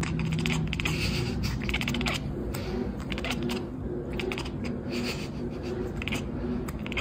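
Cat chattering: repeated short bursts of rapid clicking, about one or two a second.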